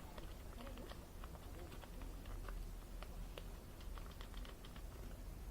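Scattered light clicks and taps at an uneven pace, as of small parts and tools being handled, over a low steady hum.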